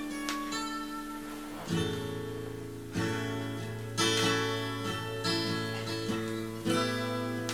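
Instrumental introduction of a folk-rock song on acoustic guitar: ringing picked notes, then strummed chords about once a second from around two seconds in.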